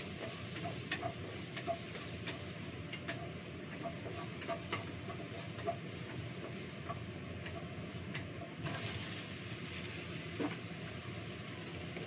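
Food sizzling in a frying pan as it is stir-fried with a wooden spatula, with irregular knocks and scrapes of the spatula against the pan.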